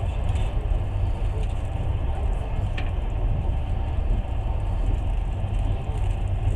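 Passenger train running, heard from inside the carriage: a steady low rumble of wheels and coach with no clear rail-joint beat, and a brief faint squeak near the middle.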